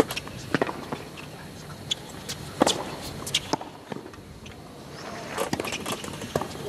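Tennis rally on a hard court: the sharp pops of the ball struck by rackets and bouncing on the court, irregularly spaced, over a faint crowd background.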